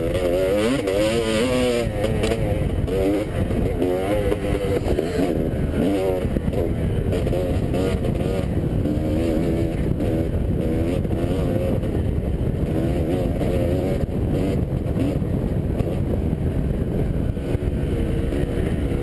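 Dirt bike engine ridden hard around a motocross track. The revs rise and fall over and over as the throttle is opened and rolled off.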